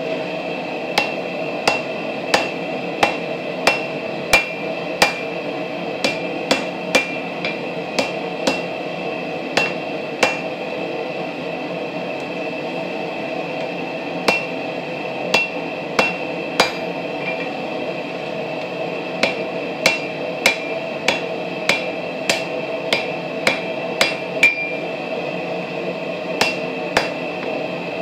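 Hammer blows on a red-hot railroad spike on a steel anvil, fullering under the spike's head: runs of ringing strikes, about one to two a second, broken by a couple of short pauses, over a steady background noise.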